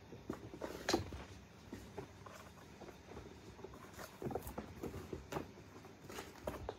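Kittens scampering, pouncing and wrestling on carpet and scratcher ramps: irregular soft thumps and scuffs of paws, loudest about a second in and bunched again in the last few seconds.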